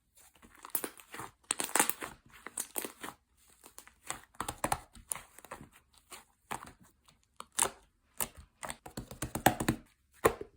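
Slime being squeezed and poked by hand, making irregular clicks, pops and crackles in uneven clusters.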